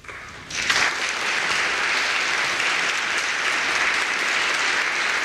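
Audience applauding, coming in at once and swelling to full strength within the first second, then holding steady.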